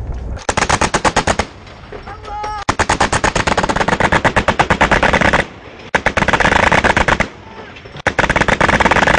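ZSU-23-4 Shilka's quad 23 mm autocannons firing in four long, very rapid bursts: a short first burst of about a second, then one of about two and a half seconds, a shorter one, and a last that is still going at the end.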